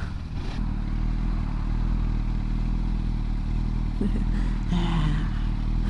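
Motorcycle engine running steadily under road and wind noise, heard from a camera mounted on the bike.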